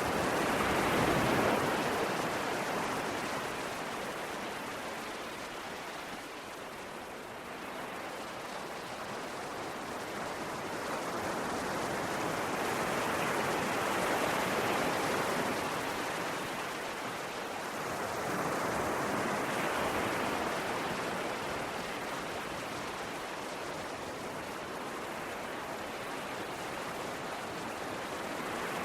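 Ocean waves breaking and washing ashore: a continuous rushing hiss that swells and eases every several seconds.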